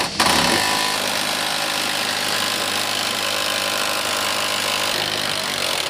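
A power tool running at a steady speed for nearly six seconds, an even hum under a wide hiss, stopping near the end.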